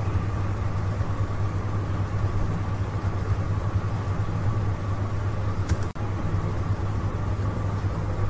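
Steady low electrical-sounding hum over background noise, with a single faint click a little before six seconds in.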